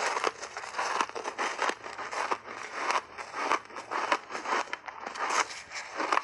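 Close-up crunching of snow-white ice chunks being bitten and chewed: a dense, irregular run of crisp crackling crunches, several each second.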